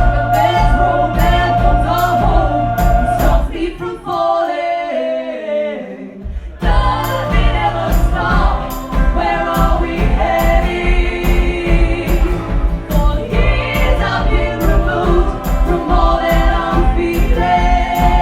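Live song with a choir singing held harmonies over a steady beat. About four seconds in, the beat and bass drop out and the voices carry on alone, gliding downward. The full band comes back in about two seconds later.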